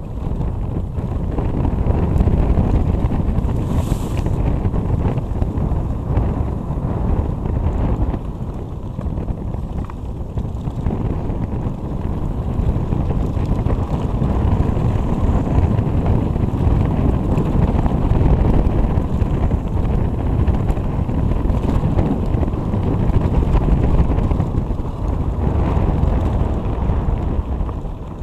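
Wind buffeting the microphone of a camera on a mountain bike riding fast downhill, over the low, steady rumble of knobby tyres on a dirt trail.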